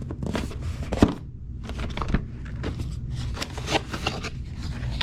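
A drone's retail box being opened by hand: irregular rustling and scraping of the box and its packaging, with a sharp click about a second in.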